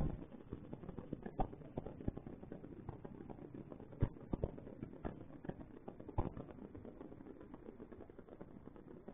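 Small scattered clicks and scratches of a mouse's feet on a plastic humane trap, over a faint steady hiss from the camera microphone.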